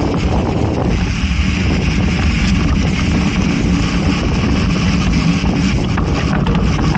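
Steady wind buffeting the microphone over the low rumble of a mountain bike's tyres rolling along a dirt trail, with a few faint clicks near the end.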